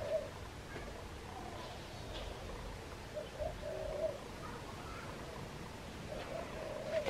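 A dove cooing over and over, a low pulsing call repeated about every three seconds.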